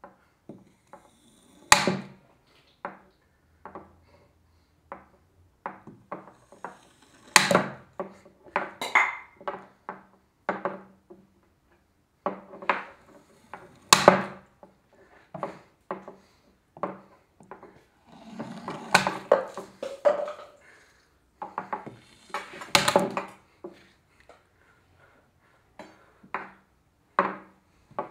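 Irregular knocks and clatters on a wooden tabletop with metal cutlery clinking, some sharp and loud, with a couple of longer, denser stretches of clatter about two-thirds of the way through.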